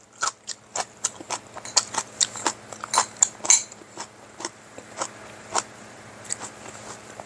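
A person chewing a mouthful of green onion kimchi close to the microphone: a run of irregular, crisp mouth clicks and crunches, thick for the first few seconds and then thinning out.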